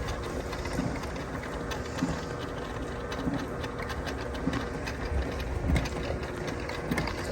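Sewer drain-cleaning machine running, its spinning cable clattering and ticking steadily as it works at the clog in a backed-up sewer line.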